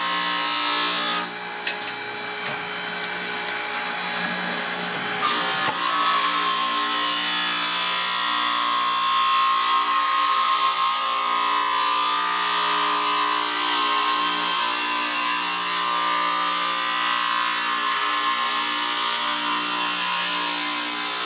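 Hammer union grinder at work: two motor-driven grinding discs square up the wings of a hammer union wing nut while a hydraulic motor turns the nut, making a steady motor hum under a hissing grind. The grinding thins out for a few seconds near the start, with a couple of clicks, then comes back in full about five seconds in.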